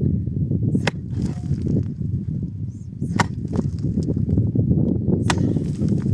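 Four sharp knocks, spaced one to two seconds apart, over a steady low rumble.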